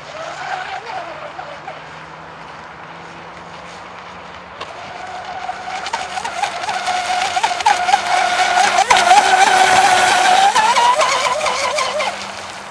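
The motor of a radio-controlled catamaran speedboat running flat out across the water, a high whine. It swells from about a third of the way in as the boat comes closer, climbs in pitch near the end, then drops away.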